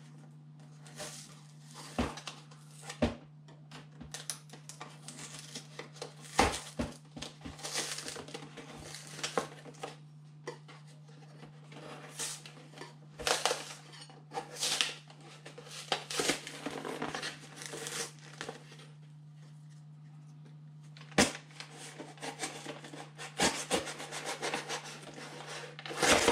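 A blunt kitchen knife scraping and sawing at the glued edge of a cardboard box, with cardboard rustling and several sharp knocks. A steady low hum runs underneath.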